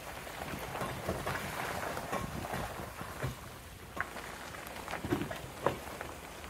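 Car driving slowly over a rough, potholed road with puddles: a steady rush of tyre and gravel noise, with a few sharp knocks from the car jolting over the holes, the loudest near the end.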